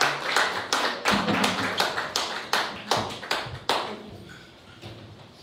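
A small group clapping, sharp separate claps several a second, dying away about four seconds in.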